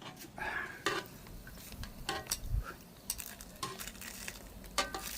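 Scattered crisp clicks and crackles as a hot, freshly fried lumpia (egg roll) is broken open to show its filling.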